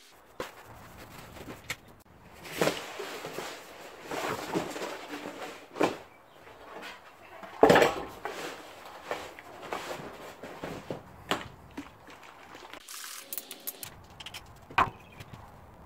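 Workbench handling sounds: rustling of a cloth drop sheet being spread out, and scattered knocks as a rusty steel seat pan is moved about, the loudest a sharp thud a little before halfway.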